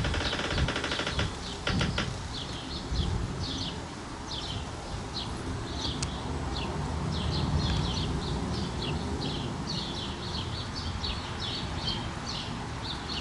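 Small birds chirping, short high chirps sliding down in pitch several times a second, with a quick rapid trill in the first second or so, over a low background rumble.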